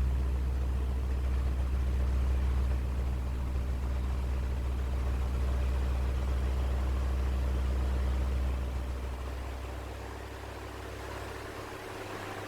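Electric motor of a wall-mounted fan running, heard up close as a steady low hum with overtones. The hum weakens after about eight seconds.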